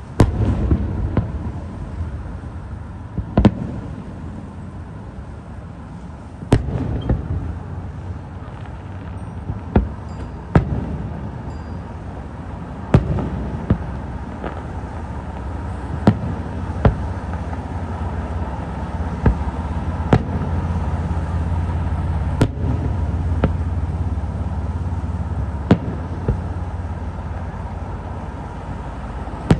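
Aerial firework shells bursting in a display: about ten sharp bangs, one every two to three seconds, over a continuous low rumble that swells in the second half.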